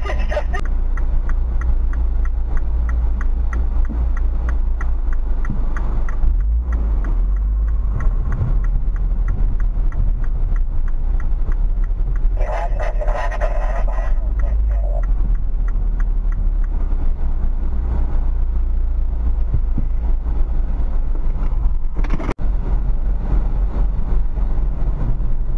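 Steady low engine and road rumble heard inside a MINI's cabin as it rolls at low speed, slowing to walking pace. About 13 seconds in there is a brief burst of walkie-talkie chatter.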